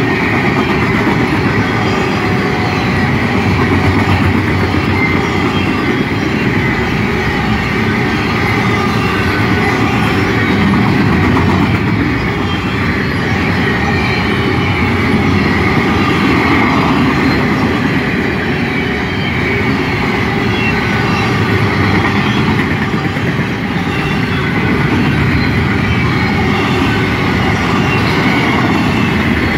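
Double-stack intermodal well cars rolling past, their steel wheels rumbling and clacking steadily over the rail joints, with faint high wheel squeal now and then.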